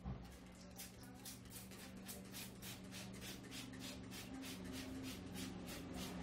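Hands rubbing briskly over the hair and scalp in a head massage, about four strokes a second, over a steady low hum.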